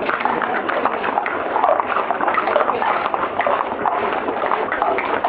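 Footsteps of a dense street crowd: many wooden geta sandals clattering on the pavement in a continuous jumble of clicks, dulled by an early sound-film recording.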